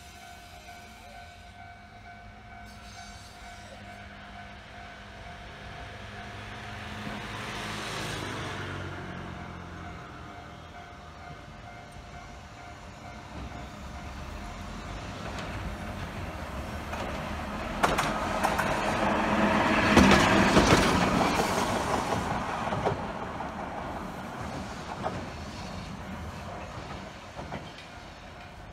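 Hankai Tramway tram approaching, passing close by and running away. Its wheels click over rail joints and the sound is loudest about two-thirds of the way through. An earlier pass-by with falling pitch rises and fades about a quarter of the way in.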